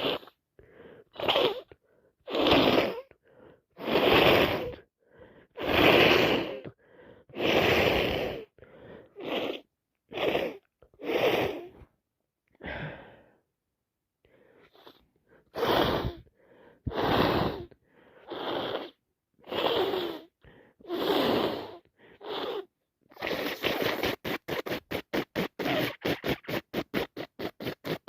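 A woman with a head cold sneezing again and again, wet sneezes one after another every second or two with sharp breaths between them. Near the end comes a fast run of short rustling strokes, about five a second.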